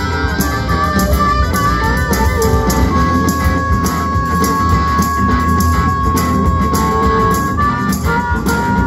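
Live rock band playing an instrumental stretch: electric guitar over bass and drums. A lead line holds one long high note from about three seconds in until near the end.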